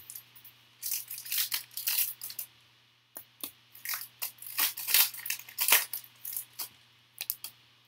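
Foil wrapper of a 2019 Rookies and Stars football card pack being torn open by hand: irregular crinkling rips and crackles, with a short lull about two and a half seconds in and a few last crackles near the end.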